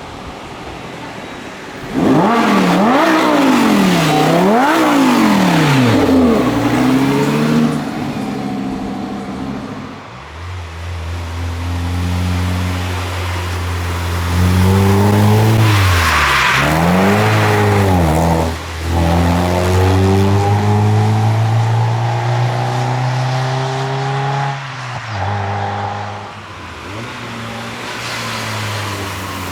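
Performance car engine revved hard several times in quick succession about two seconds in, then pulling through the gears: the pitch climbs, and brief breaks mark gear changes.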